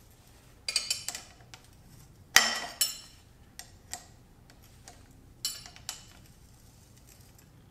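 Steel spanner wrenches clinking against the threaded adjusting and locking rings of a coilover shock absorber as they are fitted: about ten sharp metallic clinks spread out, the loudest about two and a half seconds in.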